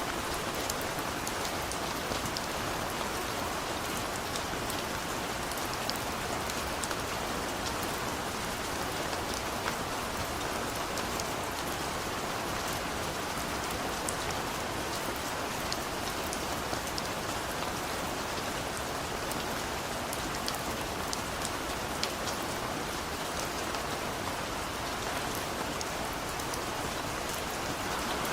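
Heavy rain falling steadily, an even hiss with many scattered sharp drop ticks.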